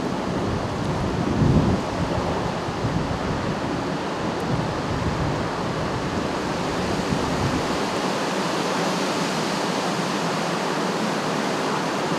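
Steady rushing of storm wind, with a gust buffeting the microphone about a second and a half in.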